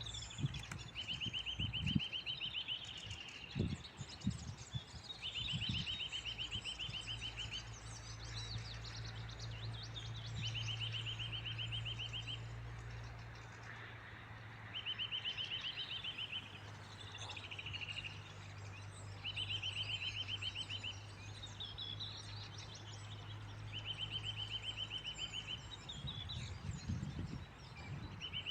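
Songbird repeating a short, even, fast trill of about two seconds roughly every four to five seconds, with other birds chirping higher in between. A low steady hum runs underneath for much of the middle.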